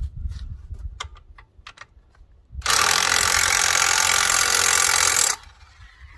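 A few light knocks and clicks, then an impact gun runs in one loud burst of nearly three seconds, driving a track bolt on a skid steer.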